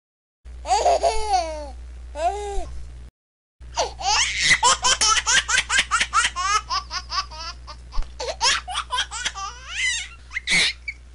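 Baby laughing in two separate recordings. First come two short gurgling laughs. Then, after a brief cut to silence, a long run of rapid, breathy giggles with a high squeal near the end, over a steady low hum.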